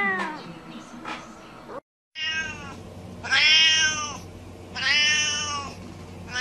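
A Siamese cat meowing: two long, drawn-out meows about a second and a half apart. At the very start, another cat's meow trails off, falling in pitch.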